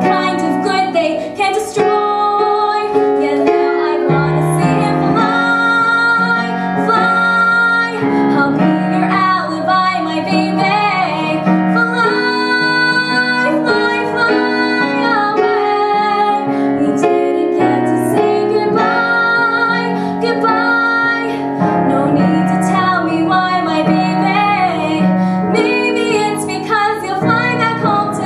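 A young woman singing a slow solo song into a microphone, holding long notes over instrumental accompaniment.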